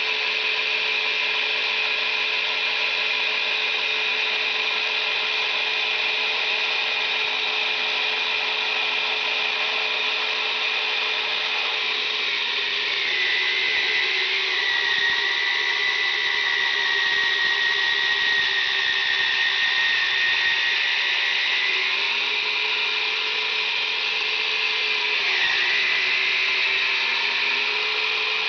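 Yonanas frozen-dessert maker's electric motor running with a steady, high whine while frozen fruit is pressed through it and comes out as soft-serve. The pitch sags and the sound grows slightly louder about halfway through, and it dips again near the end.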